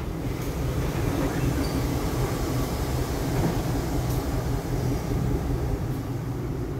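Slow-moving freight train slowing to a stop. The diesel locomotive's engine runs with a steady low rumble under the noise of the hopper cars rolling on the rails.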